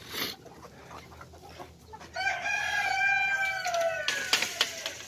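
A young cockerel in an Australorp flock, about four and a half months old, crows once. It is a single call of about two seconds that drops in pitch as it trails off.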